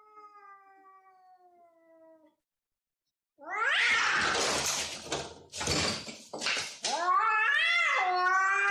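Domestic cats yowling at each other. First comes a low drawn-out yowl that falls slightly in pitch. After a pause, about three seconds in, there is loud harsh screeching, ending in a wavering caterwaul.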